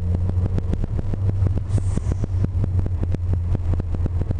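Lancia Delta's engine running at a steady low drone, heard from inside the cabin while driving, with many short knocks scattered through it.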